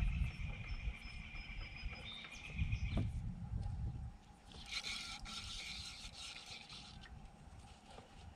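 Rubbing and scraping handling noise with low bumps near the start and about three seconds in, and a short raspy whir about halfway through.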